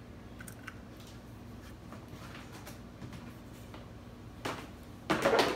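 Light clicks and ticks of a broken duck eggshell being handled over a ceramic bowl. Near the end comes a short, loud rustle-and-knock, preceded by a smaller one.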